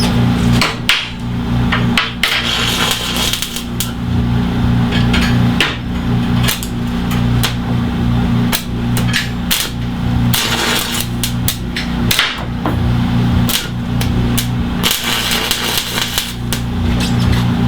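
Steel bench-leg parts being tack welded and adjusted: sharp, irregular hammer strikes on steel over a steady electrical hum, with a couple of stretches of crackling hiss from the tack welds.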